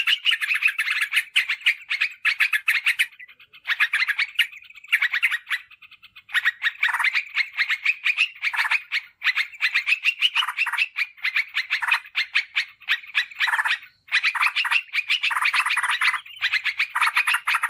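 Yellow-vented bulbul (trucukan) calling: a fast run of bubbly chattering notes that breaks off briefly a few times. It is a lure recording meant to draw wild bulbuls in.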